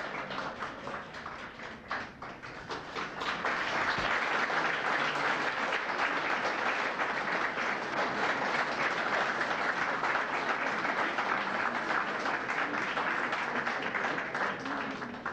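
A crowd applauding: scattered claps at first, building into steady applause about three seconds in, which eases off near the end.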